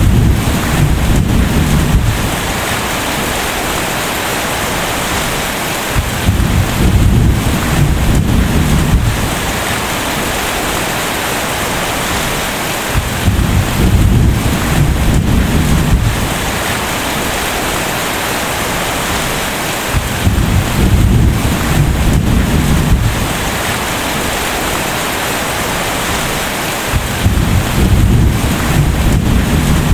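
Steady heavy rain with rolls of thunder: five deep rumbles of about two to three seconds each, evenly spaced about seven seconds apart.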